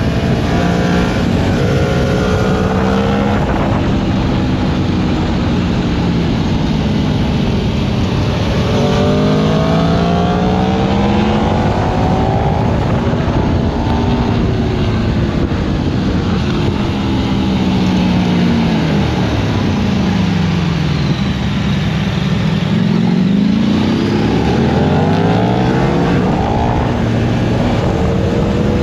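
Onboard sound of a high-performance naked motorcycle engine being ridden hard, its pitch climbing and falling again and again as it accelerates and backs off. About two-thirds through it drops to a low note, then revs sharply back up.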